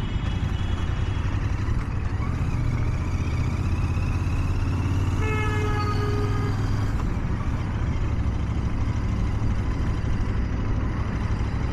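Royal Enfield Continental GT 650's 648 cc parallel-twin engine running at low speed in slow traffic, a steady low rumble. A vehicle horn honks once for about a second and a half, about five seconds in.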